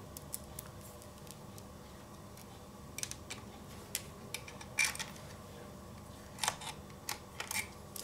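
Small scattered clicks and taps of a screwdriver working the screws that hold an SSD's metal bracket in a laptop's drive bay, with a few clicks about three seconds in, a cluster near five seconds and another about six and a half seconds in.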